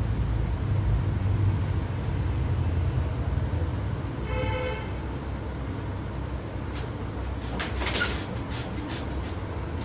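Steady low rumble of street traffic, with one short vehicle-horn toot about four and a half seconds in. A few soft knocks and rustles follow near the end.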